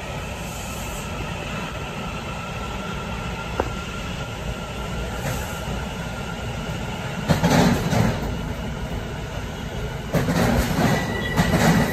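Long Island Rail Road commuter train pulling into the platform: a steady low rumble, with loud bursts of wheel and car clatter about seven seconds in and again from about ten seconds as the cars pass close by. A thin, steady high squeal starts near the end.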